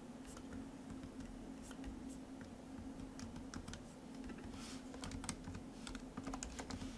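Typing on a computer keyboard: irregular key clicks, busier in the second half, over a faint steady hum.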